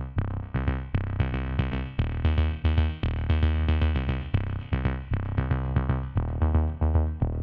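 Background electronic music with a steady beat: short repeated notes over a bass line.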